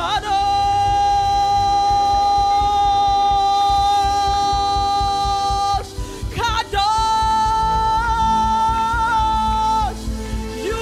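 Live gospel praise song: a woman's lead voice holds one long high note for about six seconds, breaks briefly, then holds a second, slightly higher note for about three seconds, over the band's backing.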